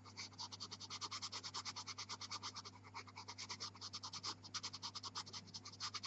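Pastel pencil scratching back and forth on velour pastel paper in quick, even strokes, roughly eight a second.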